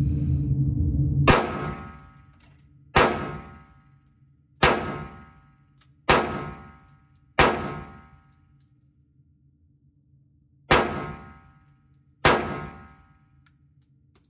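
Seven pistol shots fired slowly, one every second and a half or so with a longer pause after the fifth, from a handgun in an MCK conversion kit. Each is a sharp crack followed by a ringing echo in the indoor range. A steady low hum is there before the first shot.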